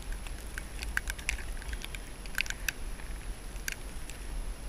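Irregular light ticking of falling snow striking the camera and jacket, over a steady low wind rumble on the microphone.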